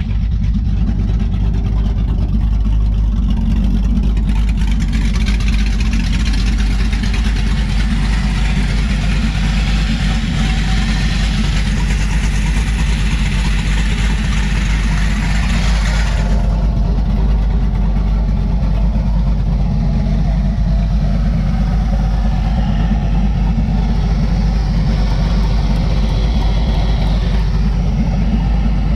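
Carbureted 5.3 L LS V8 in a Chevrolet S10, fitted with a BTR Stage 2 truck cam, idling steadily with a deep, even exhaust note. A brighter hiss rides on top from about four seconds in and cuts off suddenly about halfway through.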